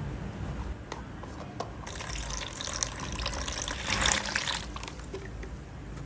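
Thick slime being worked by hand, a wet, crackling liquid sound that starts about two seconds in and is loudest near four seconds.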